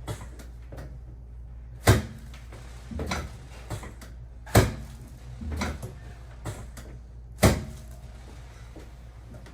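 Chiropractic adjustments on a treatment table: three loud, sharp knocks a little under three seconds apart, with softer knocks and thuds between them.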